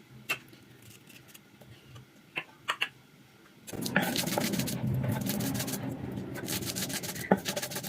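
Spices being ground on a silauta, a Nepali flat grinding stone: a few light knocks, then from about halfway a loud, continuous rhythmic rasping of stone scraping over stone.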